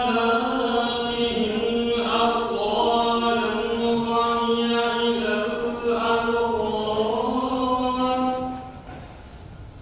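A man's voice chanting Quran recitation in the melodic tilawah style, drawing out one long phrase in held notes that slowly turn in pitch, and stopping about eight and a half seconds in.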